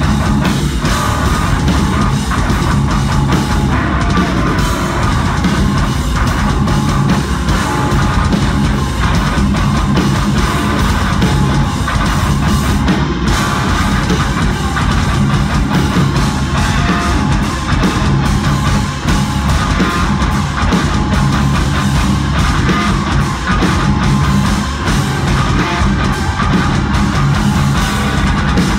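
Progressive metal band playing live and loud: distorted electric guitars, bass guitar and drum kit.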